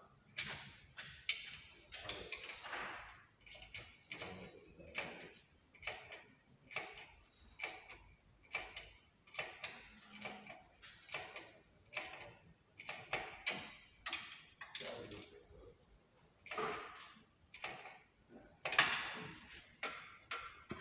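Hand tool worked against metal on the car's rear axle: a regular run of short rasping, clicking strokes, one or two a second, with a longer, louder stroke near the end.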